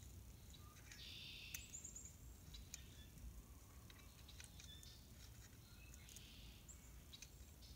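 Near silence, with two short, faint hisses of penetrating oil sprayed from a can onto a seized tiller PTO shaft, about a second in and again about six seconds in. A few faint clicks and faint bird chirps are also heard.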